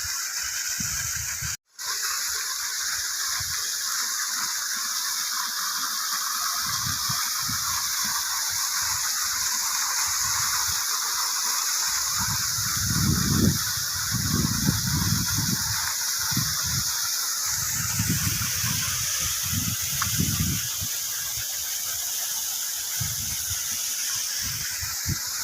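Waterfall rushing: a loud, steady hiss of falling water that cuts out for an instant about two seconds in, with irregular low rumbles on the microphone around the middle.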